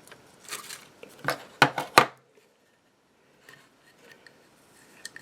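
A Zippo lighter's metal case being handled: a few sharp metallic clicks and clinks in the first two seconds, the loudest about two seconds in, then only faint small handling sounds.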